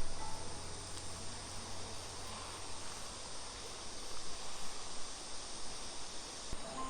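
Summer insects chirring steadily outdoors, an even high hiss, with a single soft knock near the end.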